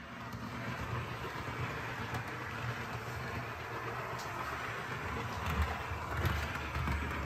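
Dapol OO gauge Class 122 bubble car model running along layout track: a steady mechanical running noise with a low hum.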